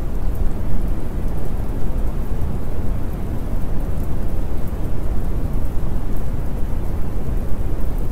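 Steady rain ambience: an even wash of rain noise with a deep low rumble and faint scattered patter of drops.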